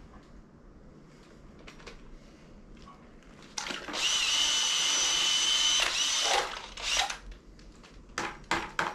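Cordless drill with a paddle mixer running at a steady high whine for about two seconds, starting about four seconds in, spinning the paddle in a bucket of water to rinse off the sprayed-cork insulation mix. A few short, separate bursts follow near the end.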